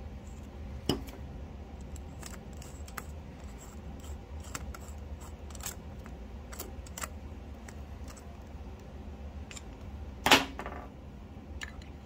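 Small metal clicks and scrapes of a screwdriver turning a carburetor's main jet back into place, with a sharper click about a second in and a louder, short metallic clatter about ten seconds in. A steady low hum runs underneath.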